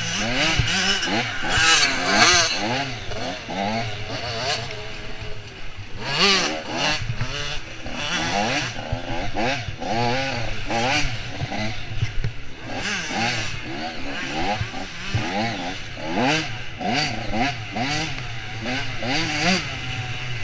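Off-road dirt bike engine revving hard and dropping back over and over, its pitch rising and falling about once or twice a second as the throttle is worked through the trail. There are short bursts of rushing noise throughout.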